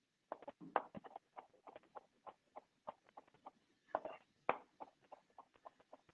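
A chef's knife chopping fresh parsley on a cutting board: a quick, uneven run of blade strikes against the board, about four a second, with a few louder chops.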